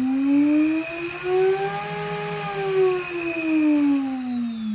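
G-Penny water-cooled high-speed spindle motor, fed from a variable-frequency drive, spinning up with a rising whine that levels off about two seconds in and then starts winding down near the end. It is running dry for a short bench test, without its cooling water.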